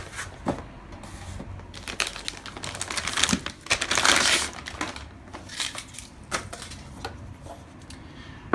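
Clear plastic bag crinkling and rustling as a car amplifier is slid out of it, with irregular crackles, loudest about four seconds in.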